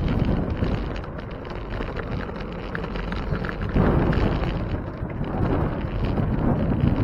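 Wind buffeting the microphone of a moving bicycle, with road rumble and small rattles from the tyres on the pavement; the buffeting gets louder about four seconds in.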